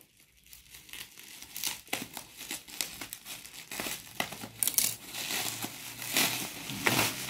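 Bubble wrap and clear plastic packaging crinkling and crackling in quick rustles as it is cut open with scissors and pulled apart by hand, getting louder in the second half.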